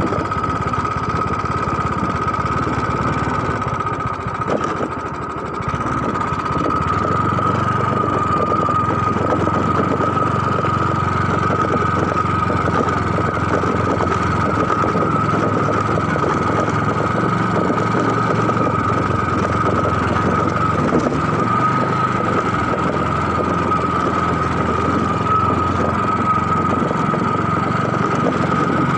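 An engine running steadily, with a steady high whine over it; the level dips briefly about four to six seconds in.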